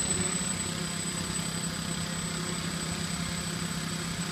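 Eight brushless motors and propellers of an X8 coaxial octocopter, set top and bottom on each arm, running in a steady buzzing drone as it hovers just above the grass.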